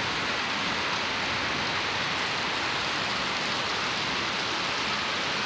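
Heavy rain falling steadily on trees and foliage, an even hiss of a downpour with no let-up.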